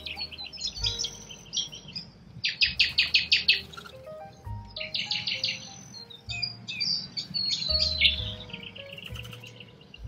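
Birds chirping and twittering, with the loudest calls coming in rapid runs about two and a half and five seconds in, over soft background music with held low notes.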